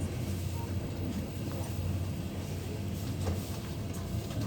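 Passenger train running, heard from inside the carriage: a steady low rumble of wheels and carriage with a few faint knocks.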